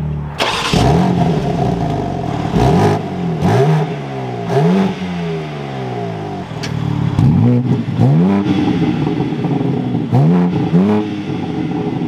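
BMW M4 Competition's 3.0-litre twin-turbo inline six idling and being revved in a series of quick blips, each rising sharply and dropping back to idle, heard from behind at the quad exhaust tips.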